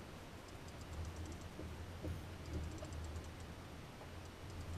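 Big-game trolling reel ticking in quick runs as line is cranked in during a tuna fight, over a steady low rumble.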